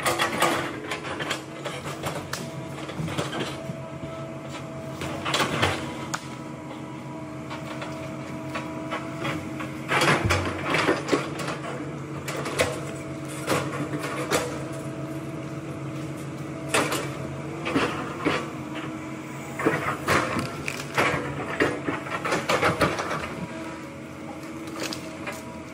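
Hitachi hydraulic excavator running steadily at working revs, with repeated knocks and clunks as its bucket and boom push and lift heavy logs.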